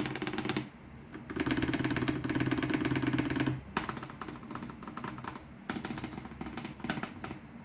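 Keys clacking on a computer keyboard. A short end of fast typing, then from about a second in a dense two-second run of rapid keystrokes, followed by slower, scattered single key presses.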